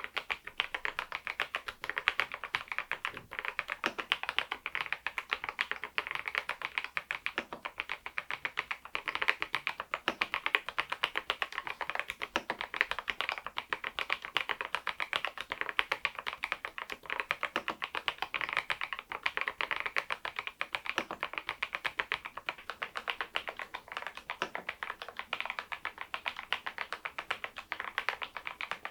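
Continuous fast typing on a Machenike K500 PRO mechanical keyboard fitted with Adelie V2 switches: a dense, steady run of short keystroke clacks.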